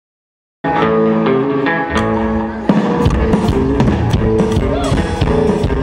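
Rockabilly band playing live, starting suddenly: a held guitar chord rings for about two seconds, then the band comes in together with a sharp hit, the upright bass and guitar driving a steady beat.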